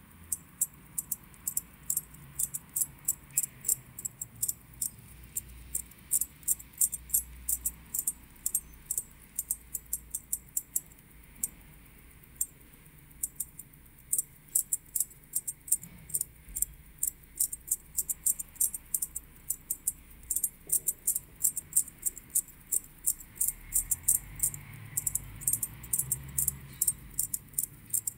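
Ulysse Nardin UN-118 watch movement being wound by turning its crown: quick, sharp, light clicks of the winding ratchet, several a second, in long runs with a brief pause about halfway.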